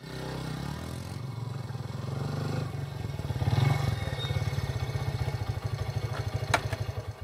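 Small commuter motorcycle's engine running at low revs as it approaches with two riders, with an even pulsing rumble that is loudest about halfway through. A short click sounds near the end.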